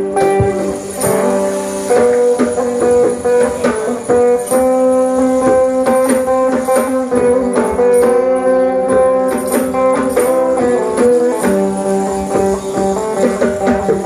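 Sape, the Sarawak boat-shaped lute, played: a plucked melody over steady drone notes, with light percussion ticking in time.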